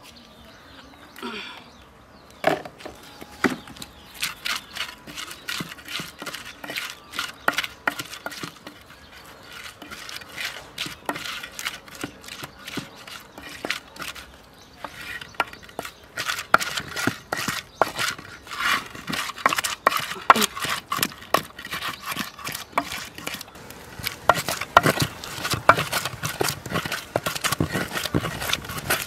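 Fresh pepper and tomato being ground with a pestle in a ridged earthenware grinding bowl (asanka): a steady run of short scraping knocks, several a second. It grows louder and denser about halfway through.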